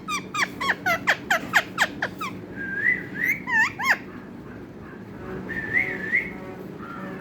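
Parrot whistling: a quick run of about ten sharp falling whistle notes, then a few separate warbling whistles.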